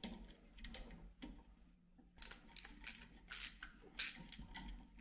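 Screwdriver tightening the terminal screw of a wall light switch's back-wire clamp, with the switch and wires handled in the fingers. It makes a series of short, faint clicks and scrapes.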